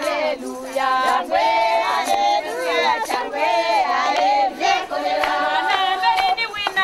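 A group of women singing a welcome song together, many voices overlapping and holding notes, with some hand claps.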